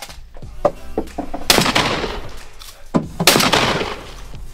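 Two shotgun shots, the first about a second and a half in and the second under two seconds later, each trailing off over about a second.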